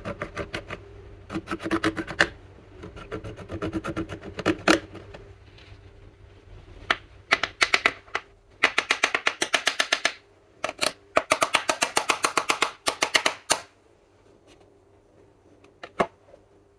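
Slime being squeezed and kneaded by hand, giving bursts of rapid crackling clicks, about ten a second, as air pockets pop, falling quiet after about 14 s.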